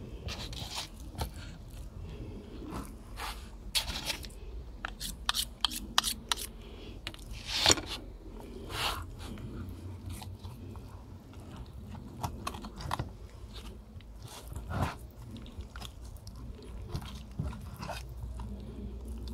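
Mora 711 knife cutting meat and gristle off a pig's head on a wooden cutting board: irregular crunches, scrapes and sharp clicks as the blade works along the bone, the loudest a few near the middle.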